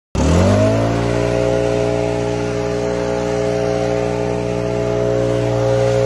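Handheld leaf blower spinning up to speed just after the start, then running steadily with a whine over the rush of air.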